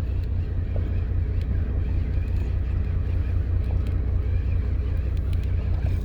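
Fishing boat's engine running with a steady low hum, with some wind noise.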